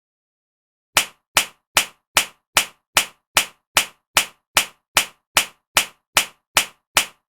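A slap across the face, a sound-effect sample, repeated about two and a half times a second at a perfectly even pace, starting about a second in. Each slap is short and sharp.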